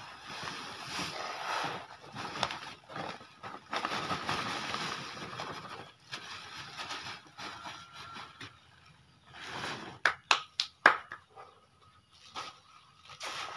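Granular fertilizer pouring out of a plastic sack onto a pile on a plastic tarp: a rustling hiss of pellets landing, in long pours that ease off and pick up again. About ten seconds in comes a quick run of sharp snaps or slaps.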